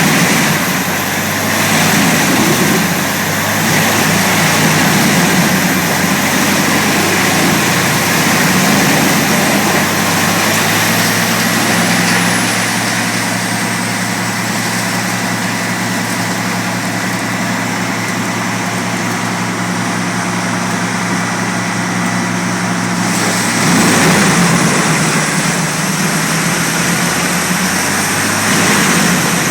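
CBI Chipmax industrial wood chipper running hard: a heavy engine drone with a high, thin whine that sinks in pitch around halfway through and climbs back near the end, and louder surges now and then.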